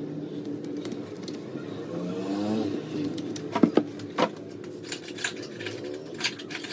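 A steady mechanical hum with a short rising whine about two seconds in, followed by several sharp metallic clinks and knocks, the loudest a pair about three and a half seconds in and another just after four seconds.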